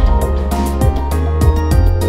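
Instrumental hip-hop/jazz track: a steady drum beat over a bass line and sustained melodic tones.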